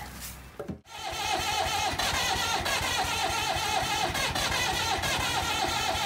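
Diesel engine of an old forklift running steadily with a fast, even mechanical rhythm, coming in abruptly about a second in.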